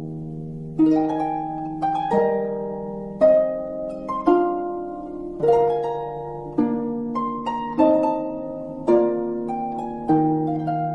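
Background harp music: slow plucked notes about once a second, each ringing and fading, over a held low note.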